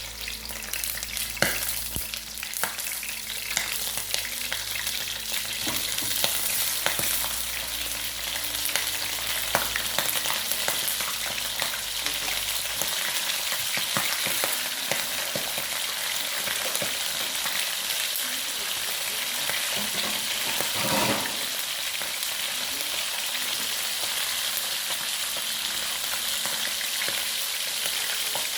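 Chicken frying in hot oil in a pan, sizzling steadily with a dense patter of fine crackles, with a brief louder stir about two-thirds of the way through.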